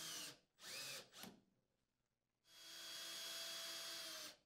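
Cordless drill with a 5/16-inch socket driving the unit's mounting screws, heard faintly. There are two brief spurts of the motor in the first second or so, then a steadier run of about two seconds that stops near the end.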